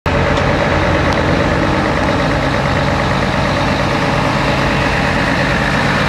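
Mercedes-Benz Actros tipper truck's diesel engine running steadily at low revs.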